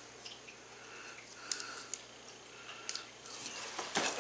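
A few faint clicks of a pocket knife being handled, then, near the end, a short loud scrape as the knife's blade cuts into the packing tape and cardboard of a box.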